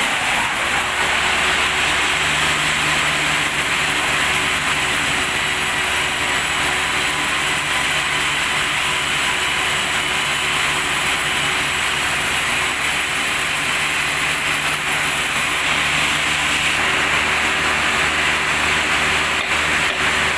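Log sawmill machinery running steadily: a constant engine hum under a continuous noisy whir.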